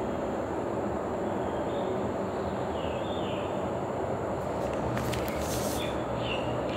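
Steady low background rumble of outdoor ambience. About five seconds in, the plastic shrink-wrap on a sealed self-heating hotpot bowl gives a few brief crinkles as it is turned in the hands.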